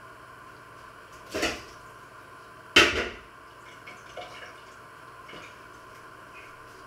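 Stainless steel cooking pot lid handled with a pot holder: a brief scraping clatter a little over a second in, then a sharp, louder metal clank near the three-second mark that rings out briefly, followed by a few faint clicks. A steady faint hum runs underneath.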